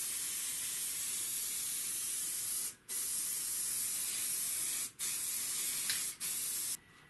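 Aerosol can of spray adhesive hissing as it coats a felt lining piece, in four sprays with short breaks between them. The first lasts nearly three seconds, the next about two, then two short ones, and it stops shortly before the end.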